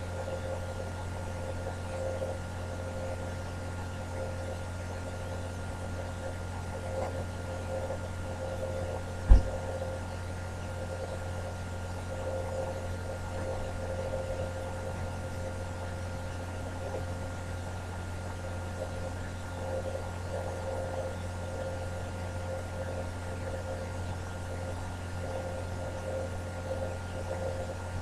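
Steady low electrical hum with a faint wavering higher tone, with one sharp knock about nine seconds in.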